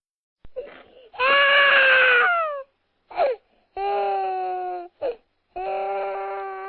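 Infant crying: three long wailing cries of about a second each, each falling in pitch at its end, with short catches of breath between them.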